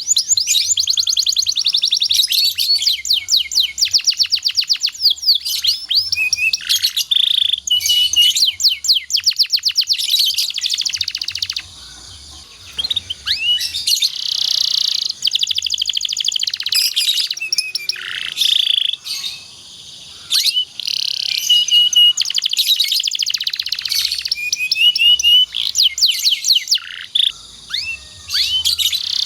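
Domestic canary singing: long phrases of fast rolling trills and chirps, broken by short pauses about twelve and twenty seconds in.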